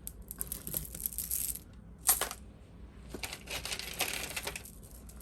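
A beaded necklace of seed beads, sequins and mother-of-pearl being handled, its beads clicking and rattling against each other in two spells, with one sharp, louder clack about two seconds in.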